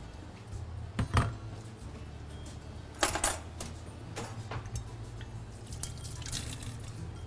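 Lemon juice being poured into chicken shawarma marinade, splashing and dripping, with two louder knocks about one and three seconds in and a steady low hum underneath.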